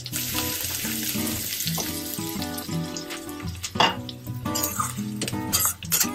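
Chopped onion and spices sizzling as they fry in a stainless steel kadai. From about four seconds in, a metal slotted spoon stirs and scrapes the pan with sharp clattering strokes, over background music.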